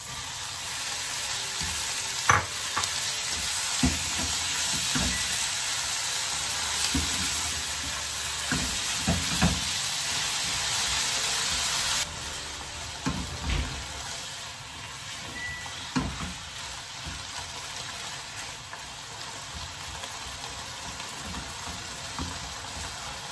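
Sliced pork sizzling in hot oil in a wok as it is stirred with a spatula, with occasional knocks of the spatula against the pan. The sizzle drops suddenly about halfway through.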